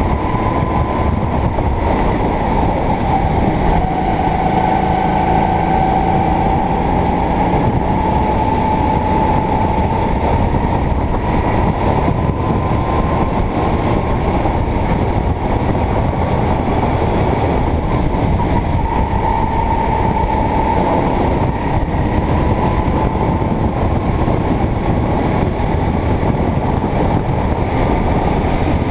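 Sodi kart engine running at racing speed, its pitch rising and falling gently as the kart goes through the corners, over a steady rushing noise.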